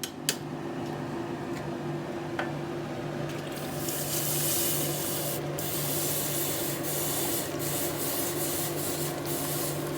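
Forge blower switched on with a click: a steady motor hum with air rushing through the fire, which grows louder about three and a half seconds in as the bar is heated for the twist.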